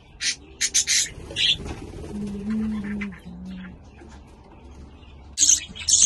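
A flock of budgerigars chirping and chattering: a run of short, sharp calls in the first two seconds and more near the end, with a low steady hum a little after the middle.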